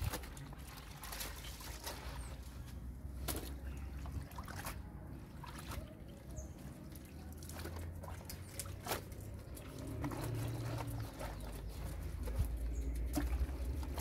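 Wet clothes being scrubbed and sloshed by hand in a concrete laundry sink, water splashing and trickling in irregular strokes.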